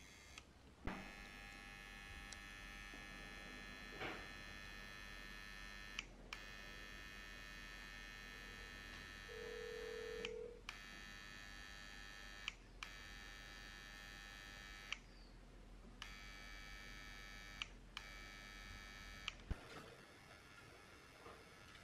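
Steady electrical mains hum with a high whine of several steady tones over it, cutting out briefly several times, with a short low beep-like tone about nine seconds in and a few soft clicks.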